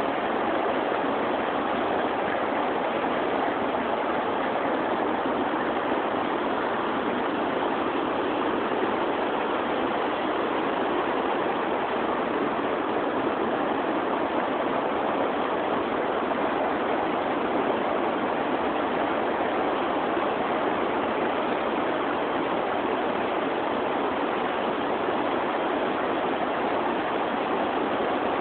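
Steady rush of flowing river water, an even noise that does not change.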